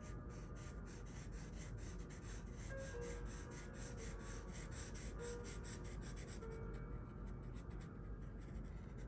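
Felt-tip marker rubbing back and forth on sketchbook paper while colouring in, quick strokes about four a second.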